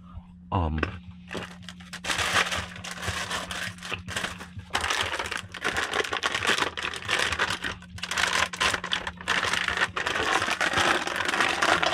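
Plastic packaging crinkling and rustling as it is handled, an irregular, near-continuous crackle starting about a second in. A steady low hum runs underneath and stops near the end.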